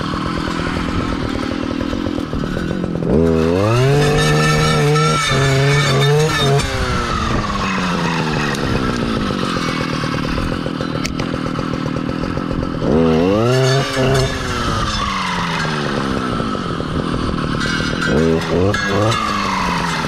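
Stihl clearing saw's engine idling, revved up three times as the saw blade cuts saplings, each time gliding back down to idle after the throttle is released.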